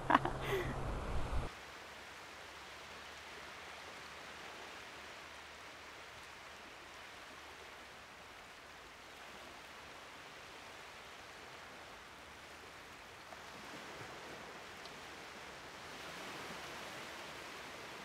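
A short stretch of louder sound with a low hum cuts off abruptly about a second and a half in. After it comes a steady, faint, even rushing noise.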